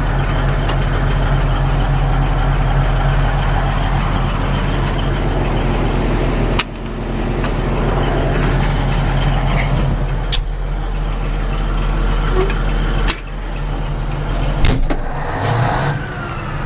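Caterpillar D9 bulldozer's diesel engine running steadily, heard from inside the cab, with a few sharp clunks over it.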